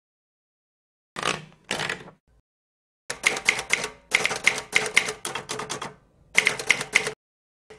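Typewriter keys striking in quick runs of about five or six keystrokes a second, with short pauses between the runs.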